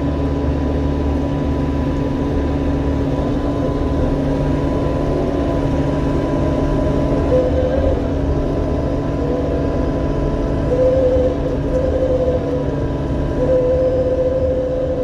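Diesel engine of a compact excavating machine running steadily under work. A higher whine comes and goes several times in the second half as the hydraulics are worked.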